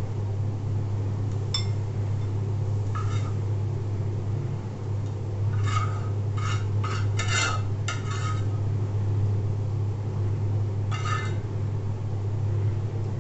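A cooking utensil clinking and scraping against the pan and a ceramic plate as fried pointed gourd pieces are served, with single clinks in the first few seconds, a run of quick scrapes about six to eight seconds in, and one more near eleven seconds. A steady low hum runs underneath.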